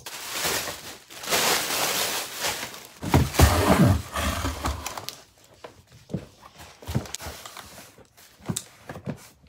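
Cardboard shipping box being opened and handled: a steady rustling scrape of cardboard for about three seconds, then a louder bumping scrape as a large boxed item is pulled out, followed by scattered light taps and handling noises.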